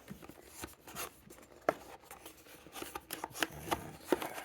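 Unboxing handling noise: rustling with irregular small clicks and taps as the doorbell's box and packaging are handled, the sharpest tap about a second and a half in.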